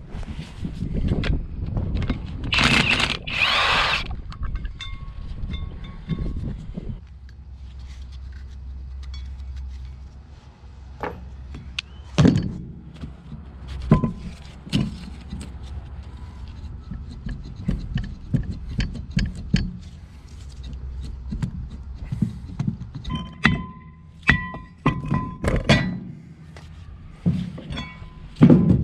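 Background music over a run of metal clanks and knocks from wrenching the bolts off the wheel-spacer adapter on a truck's front hub, with a short loud rushing noise about three seconds in.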